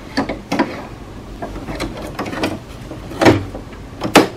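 Tri-color ink cartridge being pushed into the carriage of an HP Envy Inspire 7955e printer: a few plastic knocks and taps, then a sharp, loud click near the end as the cartridge snaps into place.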